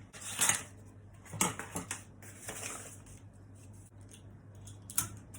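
Sheet of pattern paper being handled and laid down: a few short rustles and one longer crinkle, then a sharp click near the end, over a steady low hum.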